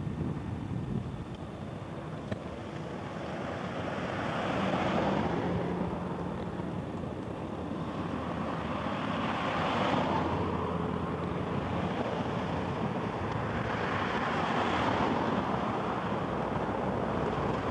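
Cars passing on a wide road, their tyre and engine noise swelling and fading three times as each goes by.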